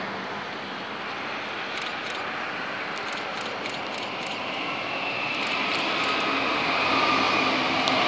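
Three-car Queensland Rail electric multiple-unit train approaching and passing, a rushing rail noise growing steadily louder. A high whine comes in about halfway through.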